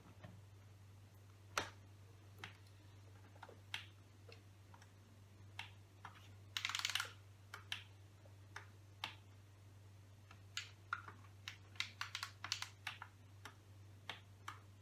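Scattered keystrokes on a laptop keyboard, with a quick run of key presses about seven seconds in and a flurry of keys near the end, over a steady low hum.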